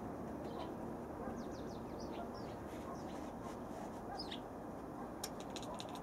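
Small birds chirping outside, short high descending chirps through the first few seconds. Near the end a rapid train of sharp clicks begins, about eight a second: a tabby kitten chattering its jaws at the bird, the hunting reaction of a cat that sees prey it cannot reach.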